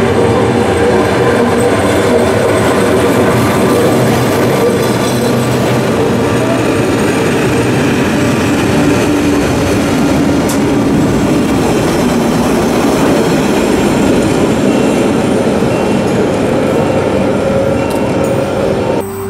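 Historic 1916 Bernina Railway electric locomotive BB 81 and its wooden coaches passing at close range on street track: loud, steady rolling noise of wheels on rails with a whine running through it, easing slightly as the train moves away. It cuts off suddenly just before the end.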